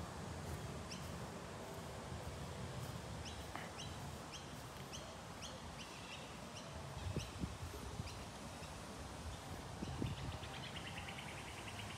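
Birds calling: a series of short, high chirps for the first half, then a rapid trill near the end, over steady low background noise. A few soft low thumps come in the second half.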